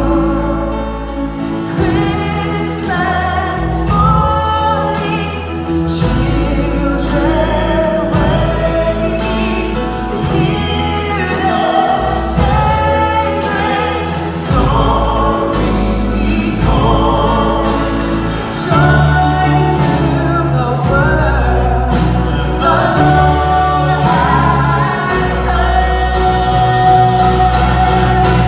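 A woman singing the lead of a Christmas worship song live, over a band with a steady bass line, and a choir singing behind her.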